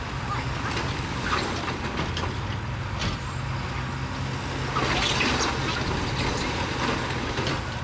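Bulldozer's diesel engine running steadily under load, with a few short clanks and scrapes, the longest about five seconds in.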